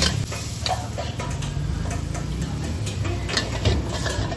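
A metal spatula scraping and clinking against a steel wok as stir-fried kale is scooped out and plated. There are a few sharp knocks, two of them close together near the end, over a steady low hum.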